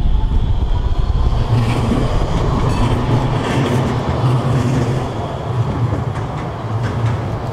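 Electric street tram passing close by on its rails: a low rumble with a traction-motor whine rising slowly in pitch, and the wheels clattering over the track about two seconds in as it goes past.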